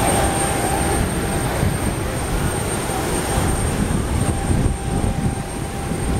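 Busy outdoor crowd ambience: a steady, uneven low rumble and hiss with faint voices of people milling about.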